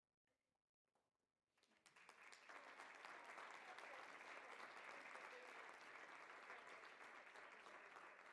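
Audience applauding, starting about a second and a half in after near silence and then holding steady.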